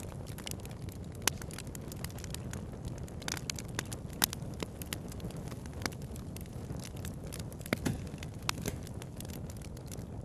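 Crackling fire sound effect: a steady low rumble of flames with scattered sharp pops and snaps.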